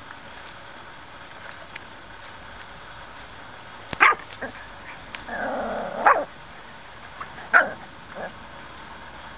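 Seven-week-old miniature schnauzer puppies yapping as they play-fight: three short, sharp, high yaps, the first about four seconds in and the last near eight seconds, with a longer rough stretch just before the second.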